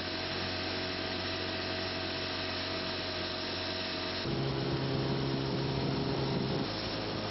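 Boat engine running steadily under a haze of water and wind noise. The engine tone shifts abruptly about four seconds in, where the footage cuts to another shot, and gets a little louder.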